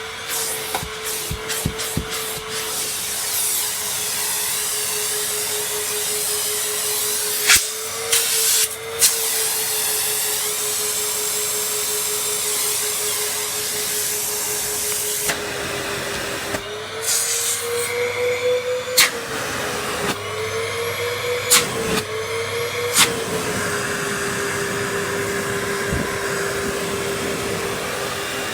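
Numatic NVDQ572 twin-motor industrial vacuum cleaner running at full power with a steady motor whine. The pitch wavers up and down a few times about two-thirds of the way through, as the suction load changes. A few sharp clicks and knocks sound over it.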